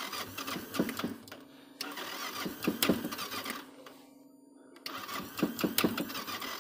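Motorcycle electric starter cranking a cold engine in three bursts of about two seconds each, with a short pause before the last. The engine does not catch: a failed cold start on a freezing morning.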